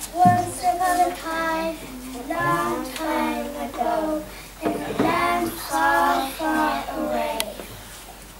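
A young child's voice singing a song unaccompanied, in phrases of held notes.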